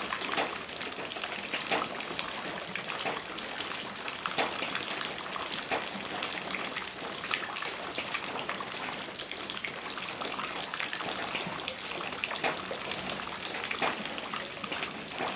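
Steady rainfall, with the patter of many individual drops landing close by and water pouring or gushing.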